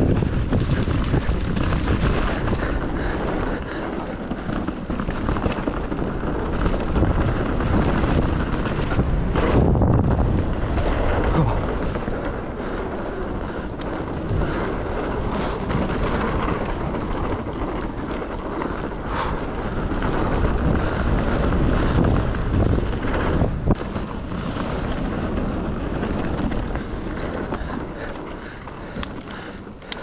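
Mountain bike descending fast on a dirt trail: wind rushing over the camera's microphone and tyres rolling over the ground, with frequent knocks and rattles from the bike over bumps.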